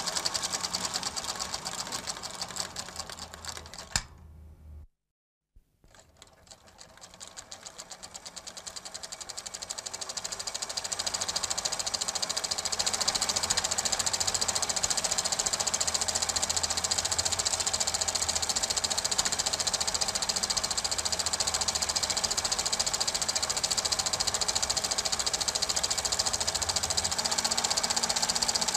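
Super 8 film projector running with a fast, even mechanical clatter. It fades out about four seconds in, cuts to silence for about a second, then fades back in and runs steadily.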